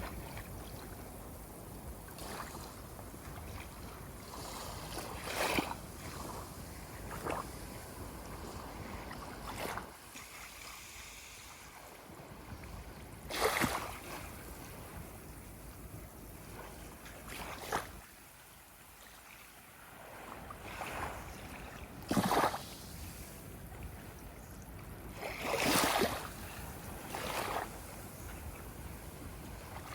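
Ocean waves washing steadily, with a few short, louder splashes spaced several seconds apart.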